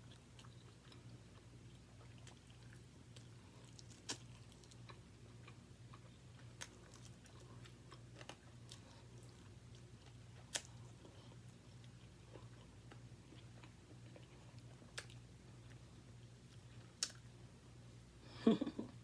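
Close-miked chewing of fried chicken wing drumettes: quiet steady chewing, broken by a sharp crunch every couple of seconds, with a louder, longer mouth sound just before the end.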